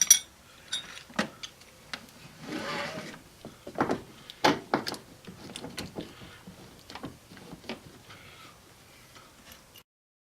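Car interior plastic trim and seat-belt hardware being handled and fitted: scattered clicks and knocks, the sharpest at the start, with a short rubbing scrape about two and a half seconds in.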